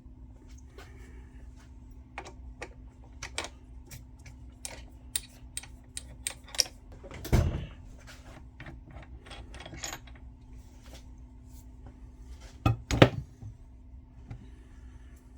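Metal clinks and knocks as a machine vise and its hold-down hardware are handled and set on a mini mill's table, over a faint steady hum. A heavier thunk comes about seven seconds in and two more near the end.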